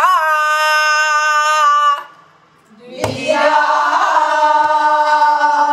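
A woman singing in pansori style, holding two long notes: the first lasts about two seconds, there is a short break, and the second starts about three seconds in.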